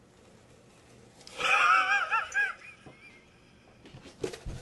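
A person's high-pitched, wavering squeal of surprise about a second in, lasting about a second. A few soft knocks near the end.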